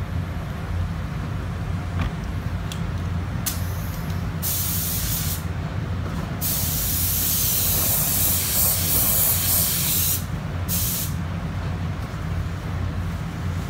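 Paint spray gun hissing in trigger-pulled bursts while spraying a base coat of colour on a car body. There is a brief burst, then one about a second long, then a long pass of about three and a half seconds, and a last short burst, over a steady low hum.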